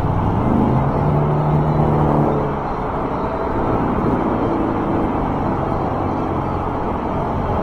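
Steady rush of highway traffic and wind while riding an electric bike alongside the road, with a low engine-like hum standing out for about two seconds near the start.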